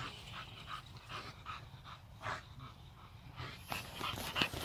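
American bully dogs panting hard while playing, a quick string of breaths that grows louder near the end.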